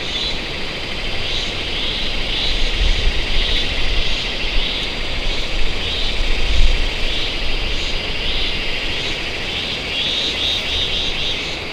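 A chorus of forest insects: a steady high buzzing that pulses about twice a second, over a low rumble.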